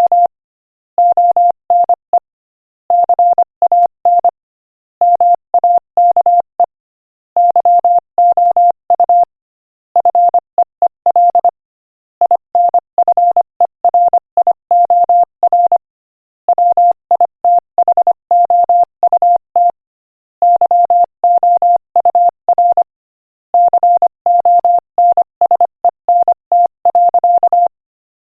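Morse code sent as a single steady beep tone at 25 words per minute: quick runs of short dits and longer dahs, grouped into words with brief silent gaps between them, spelling out a quotation.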